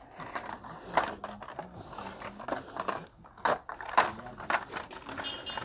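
Irregular clicks and knocks of carded and boxed toy packages being handled and shifted on store shelves and pegs.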